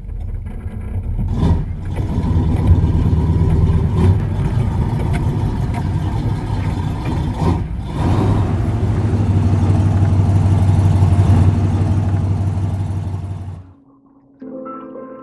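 Off-road vehicle engine running steadily under load while crawling over rocks, with a few sharp knocks. The sound cuts off suddenly near the end, and music starts.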